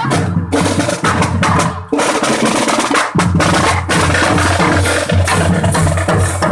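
Loud music with heavy, rapid drumming and percussion strikes over a steady bass beat, briefly dropping out a few times.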